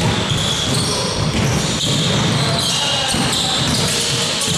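A basketball being dribbled on an indoor court during live play, with players' and spectators' voices and short high squeaks over it.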